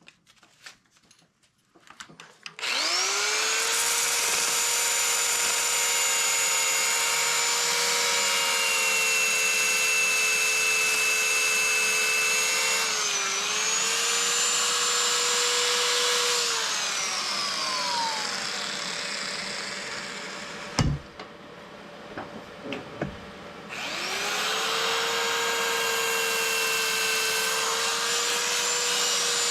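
Wood lathe motor spinning up with a rising whine, running steadily with a tool rubbing on the spinning wood, then winding down with a falling whine. A few knocks follow before it spins up again.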